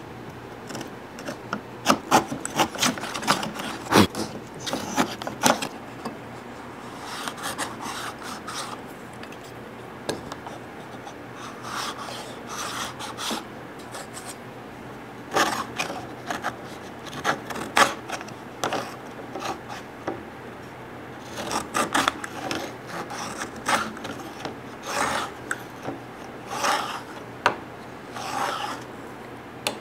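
Hand tools cutting wood: groups of short scraping, rasping strokes, with sharp clicks and knocks in between and no motor running.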